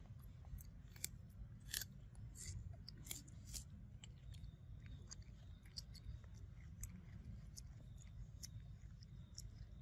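Macaque chewing corn kernels off the cob: faint, crisp crunching clicks, most of them in the first few seconds, over a low steady rumble.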